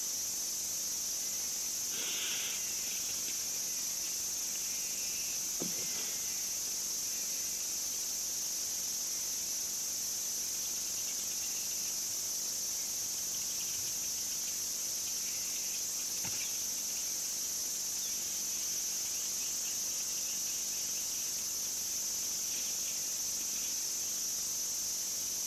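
Steady chorus of crickets or other insects, a continuous high-pitched drone, with a few faint short chirps scattered through it.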